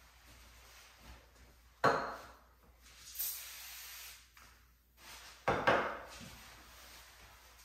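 A cloth wiping and rubbing across a glass shower door in short, loud strokes: once, then twice in quick succession later on. In between comes about a second of hiss from a Sprayway aerosol glass cleaner being sprayed onto the glass.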